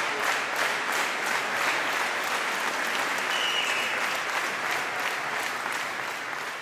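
Audience applauding in a large hall. The clapping fades away toward the end.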